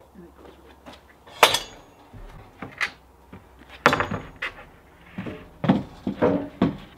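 Wood being handled on the steel bed of a Norwood portable sawmill, knocking and clattering. There are two sharp knocks, about one and a half and four seconds in, then a run of duller thumps near the end.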